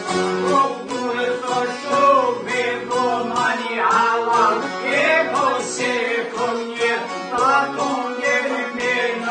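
Albanian folk song: a man sings over plucked long-necked lutes and an accordion.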